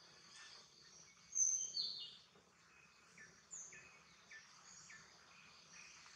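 Birds calling in the background: short, high, falling chirps repeating every second or so, the loudest pair about one and a half to two seconds in, over a faint steady hiss of outdoor ambience.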